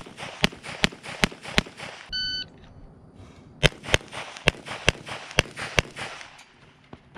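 Pistol fire from a CZ Shadow 2: five shots about 0.4 s apart, then a short electronic shot-timer beep about two seconds in, and after a pause of about a second and a half, a second string of six quick shots.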